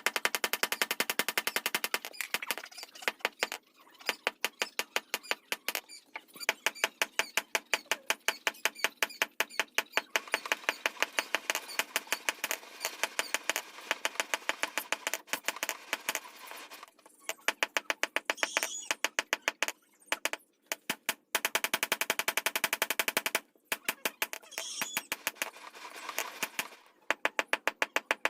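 Rapid, regular hammer blows of metal on metal on an anvil, several a second with a ringing tone, coming in long runs broken by brief pauses: a blade being forged.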